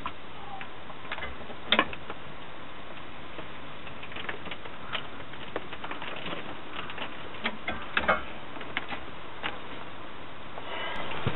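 Clear plastic bag crinkling and rustling as it is handled at a heat sealer's jaws, with scattered sharp clicks; the loudest clicks come about two seconds in and again around eight seconds.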